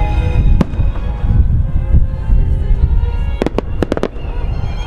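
Aerial fireworks shells bursting overhead: continuous deep booms rolling together, with a sharp crack under a second in and a quick run of about five sharp cracks around three and a half seconds in.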